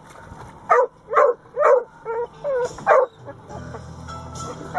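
Dog barking at a hooked fish splashing beside the boat: about six short barks in quick succession, over roughly two seconds.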